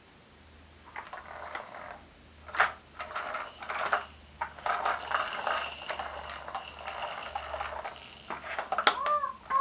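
Little Tikes plastic toy train pushed along a hard surface, starting about a second in: plastic wheels rolling and clattering, with the beads in the engine's clear chamber rattling and clinking and a few sharp knocks.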